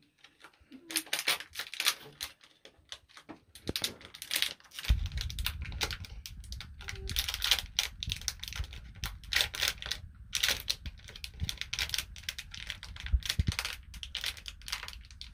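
Plastic toy wrapper crinkling and rustling as a blind-bag packet is handled and torn open, in quick irregular crackles, with a low rumble joining about five seconds in.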